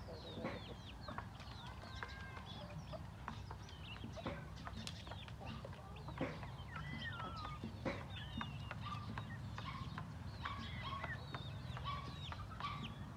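Barnyard chickens clucking, with many short high chirps and calls scattered throughout and a few sharp clicks.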